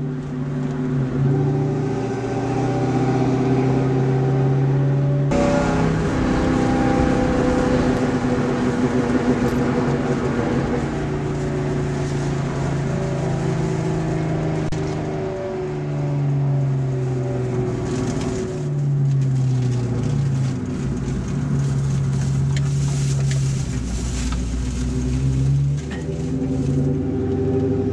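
Car driving, heard from inside the cabin: a low engine hum with road and wind noise, which turns suddenly louder and rougher about five seconds in.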